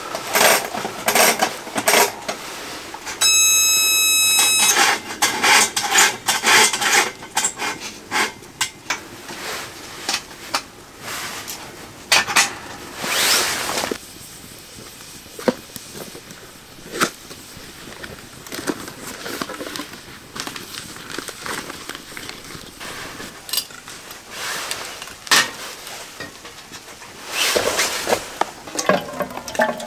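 Cookware and utensils being handled at a camp stove: pots and cutlery clinking and knocking in scattered sharp clicks, with a steady high tone lasting about a second and a half a few seconds in.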